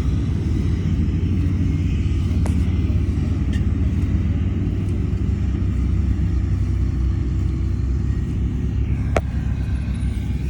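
Heavy earthmoving diesel engine running steadily with a deep rumble, with a few light knocks and one sharp click near the end.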